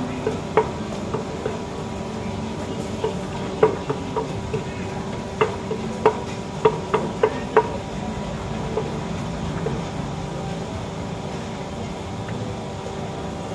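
Wooden pestle pounding som tam in a clay mortar: irregular, sharp knocks, about a dozen in the first seven and a half seconds, then the pounding stops.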